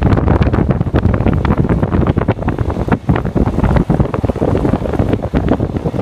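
Wind buffeting the microphone of a camera held at an open window of a moving car, loud and gusty, over the rumble of the car on a gravel road.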